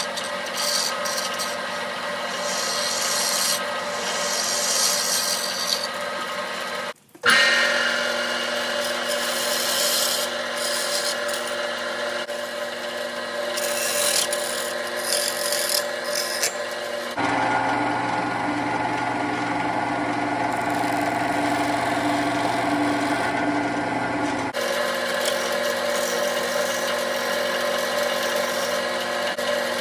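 Wood lathe running with a turning tool scraping into a spinning wooden bowl blank: a steady motor hum under a rough scraping. There is a short break about seven seconds in, and the hum changes pitch for a stretch in the middle.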